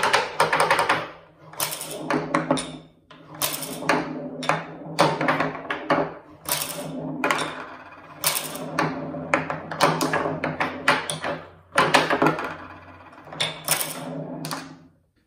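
Steel pinballs rolling over a birch-plywood playfield and clacking against its wooden rails, flippers and score holes, in irregular clusters of sharp knocks several a second.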